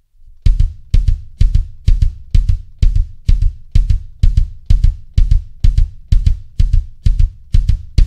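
Bass drum played by the left foot alone in steady, even eighth notes, about two heavy strokes a second, each with a sharp beater click.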